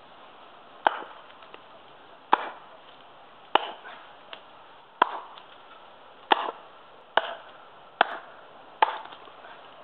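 Small Prandi Yankee axe chopping into a branch laid on a wooden stump: eight sharp chops, one every second or so, coming a little quicker toward the end.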